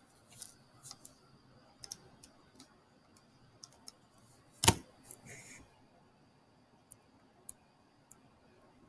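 Scattered light clicks and taps from handwriting being put onto the screen, with one much sharper knock about four and a half seconds in. A faint steady high whine sits underneath.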